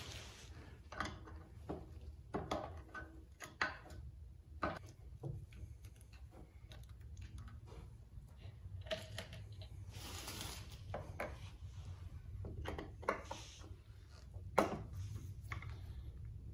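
Scattered clicks, taps and scrapes of a hand tool working at the drain screws of an outboard motor's metal gearcase to let the lower-unit gear oil out, with a sharper knock near the end and a low steady hum underneath.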